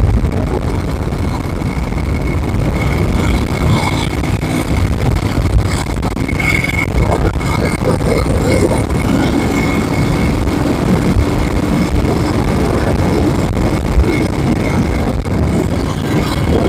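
Moto Guzzi Eldorado's big-bore (nearly 1000cc) transverse V-twin running steadily while the motorcycle is ridden, under a steady rush of wind noise.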